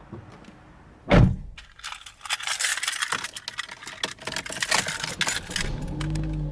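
A thump about a second in, then keys jangling and clicking for a few seconds, and a car engine starting with a low rumble near the end.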